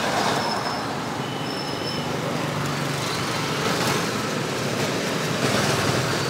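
Steady street traffic noise, with vehicle engines running close by.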